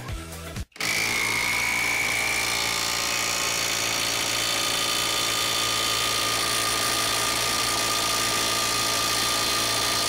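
JSD Hope cordless impact wrench hammering continuously under full load against a hydraulic test rig. It starts about a second in and runs at a steady, unbroken level, with a faint steady tone over the rapid impacts, as it drives the rig's pressure up toward about 1500 psi.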